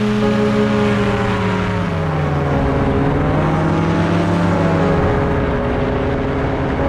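Powered parachute's engine and pusher propeller running loud and steady, the engine pitch dipping and rising a little as the cart moves on the runway.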